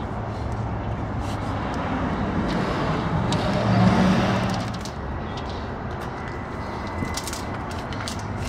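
Steady low rumble of road traffic, with one vehicle passing that swells louder about four seconds in and fades away. Short crinkles of DuPont FlexWrap flashing membrane as its backing is peeled and it is pressed onto the sill.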